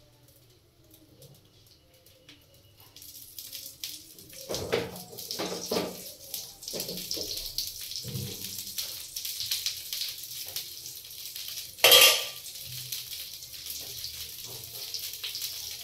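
Chana-dal batter dosa frying in oil on a nonstick pan, with a steady sizzle that starts about three seconds in as oil goes around it. A steel spoon knocks against the pan and bowl several times, and gives one sharp, loud clink about twelve seconds in.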